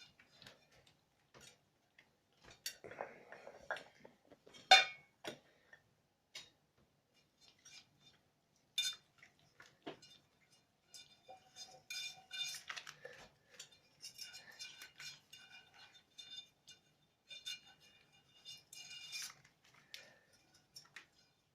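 Dishes and cutlery clinking and knocking as kitchenware is taken out and set down, in scattered knocks with one sharp knock about five seconds in, then a run of ringing clinks in the second half.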